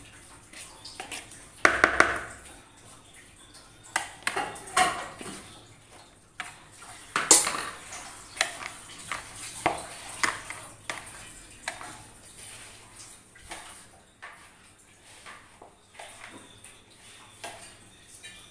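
Irregular clinks, knocks and scrapes of a steel spoon against a plastic mixing bowl as grated potato is stirred together with flour. The loudest knocks come about 2 and 7 seconds in.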